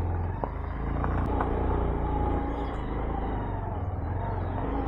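Motorcycle engine running steadily, with a few clicks in the first second and a half.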